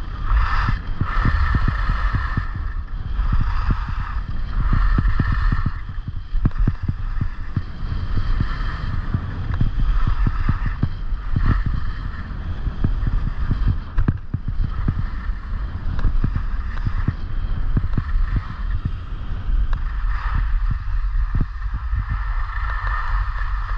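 Wind buffeting a helmet-mounted action camera's microphone at speed, with the hiss and scrape of skis on groomed snow swelling with each turn. Near the end the rush eases as the skier slows to a stop.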